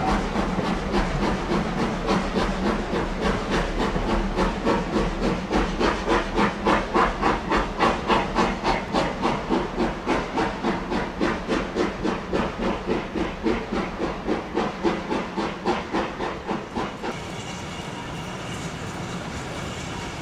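Steam locomotive working a train, its exhaust chuffing in a steady rhythm of about three beats a second. The chuffs are loudest about eight seconds in, then fade away as the engine draws off, and die out shortly before the end.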